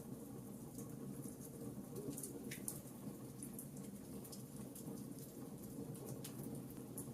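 Fireplace fire crackling: frequent small, sharp pops and snaps over a soft, steady low rush of flames, with one louder pop about two and a half seconds in.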